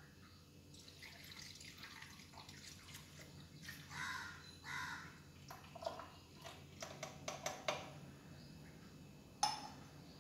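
Small steel cup clinking and tapping against a drip coffee maker's filter basket as coffee powder is tipped in, with a quick run of light taps and one sharper knock near the end.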